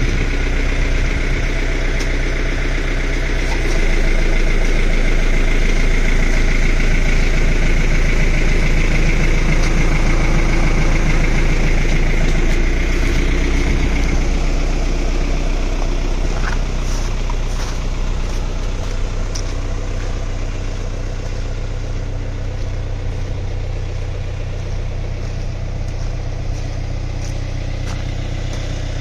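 Farm tractor's diesel engine running steadily while it drives the hydraulics that tip the trailer bed, with a high whine over it. Around halfway through, the whine stops and the engine settles a little quieter.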